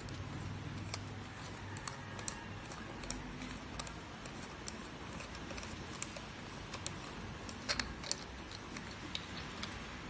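Scattered small clicks and taps of plastic and metal as a stainless-steel burr coffee grinder is taken apart by hand, its white plastic ring and burr assembly being worked out of the tube. A few louder clicks come close together about three-quarters of the way through.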